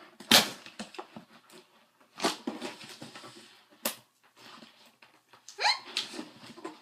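Packing tape being pulled and torn off a cardboard box in four quick rips, the last one with a rising squeal.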